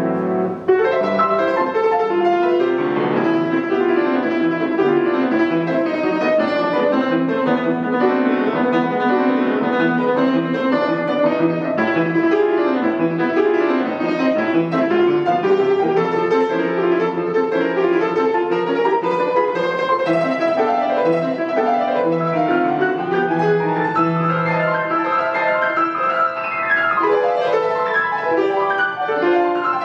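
Estonia grand piano played solo: a continuous classical piece with full, dense chords and fast runs of notes, several quick runs sweeping down near the end.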